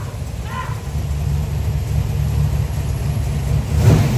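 Twin-turbo big-block V8 in a first-generation Camaro SS idling with a steady low rumble. A sharp knock near the end stands out above the idle.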